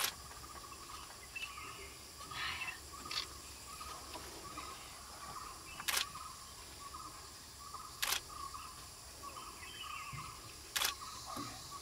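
Single camera shutter clicks, a few seconds apart, over a faint background chirp that pulses about twice a second.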